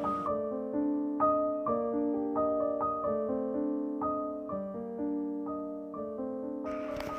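Background piano music playing a melody of short, clearly separated notes. Near the end a hiss of other noise comes in under it.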